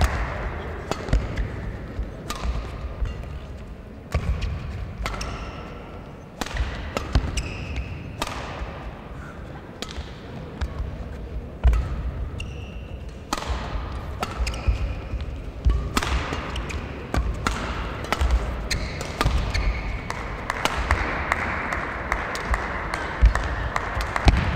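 Badminton rally in a large sports hall: repeated sharp racket strikes on the shuttlecock and players' footsteps thudding on the court, with faint voices in the background.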